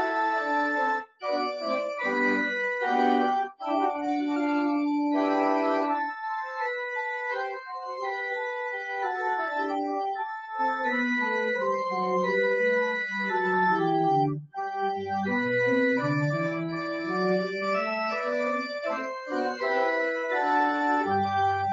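Organ playing a postlude at the close of the service: sustained chords and a moving melody, with a few short breaks between phrases and low bass notes joining in the second half.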